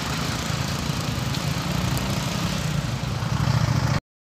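Motor engines running steadily, with a low rumble and a noisy haze above it, cutting off abruptly near the end.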